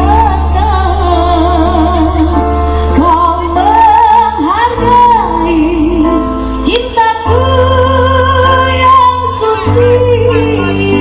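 Loud music from a large truck-mounted speaker stack: a female voice singing with strong vibrato over deep, sustained bass.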